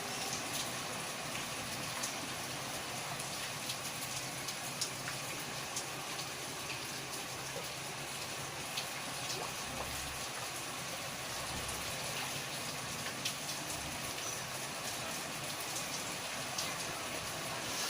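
Steady rain falling: a constant hiss with scattered sharp ticks of individual drops hitting nearby surfaces.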